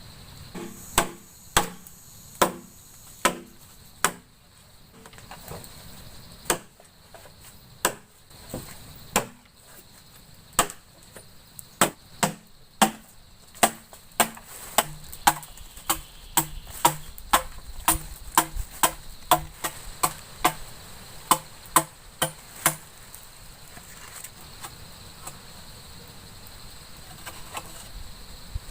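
Repeated sharp blows of a tool chopping, one to two a second, that stop after about twenty-two seconds, over a steady chorus of crickets.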